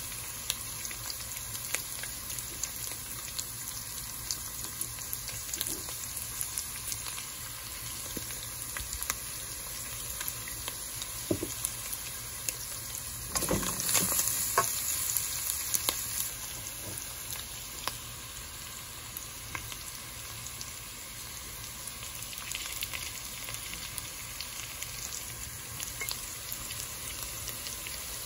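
Ground meat, onion and garlic sizzling as they sauté in an aluminium pot, with light scraping and clicks from a wooden spatula stirring them. The sizzle grows louder for a couple of seconds about halfway through.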